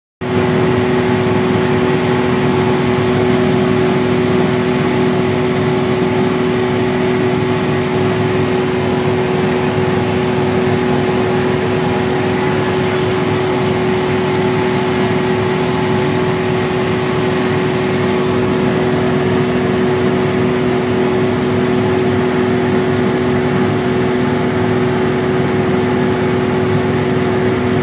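Electric grinding machine running steadily with a constant motor hum, milling dried red chillies into powder; it starts abruptly.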